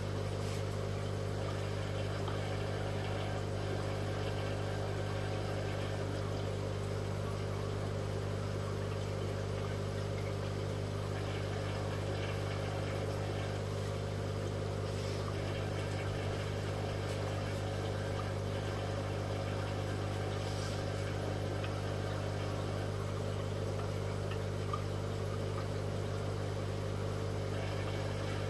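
Steady low electric hum of an aquarium air pump running.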